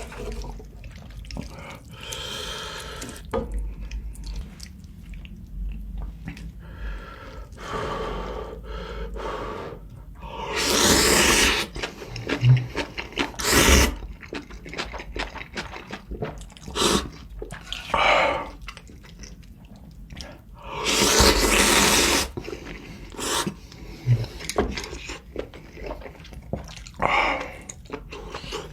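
Close-up eating sounds of spicy ramen: wet slurping of noodles and soup, with two long loud slurps about a third and about three quarters of the way through, and shorter chewing and sipping sounds in between.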